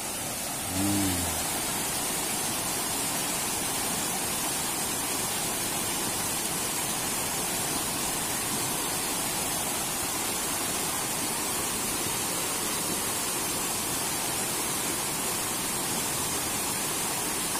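Shallow river flowing over rocks: a steady rushing of water. About a second in there is a brief low hum lasting about half a second.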